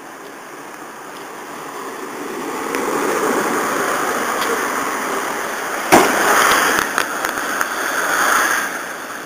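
Nissan Skyline C10 'Hakosuka' engine running and building up in loudness, heard as a harsh rushing noise through a phone's small microphone. A sharp bang comes about six seconds in, followed by a few sharper crackles before the sound eases near the end.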